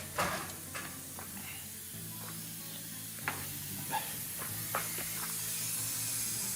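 Background music with low notes that change every second or two, over a steady high hiss, with several sharp clicks and knocks scattered through it.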